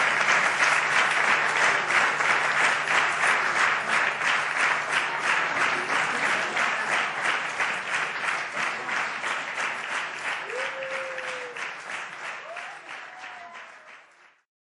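Audience applauding, a dense crowd of claps that fades out gradually and cuts off shortly before the end.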